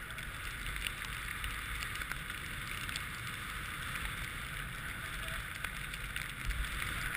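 Snowboard sliding over snow, a steady hiss, with wind buffeting the microphone.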